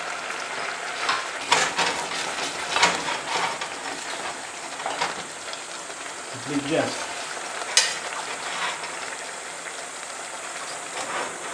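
Wooden spoon stirring risotto in a metal pot, with several scraping strokes against the pot, over the steady hiss and bubbling of the rice simmering in broth.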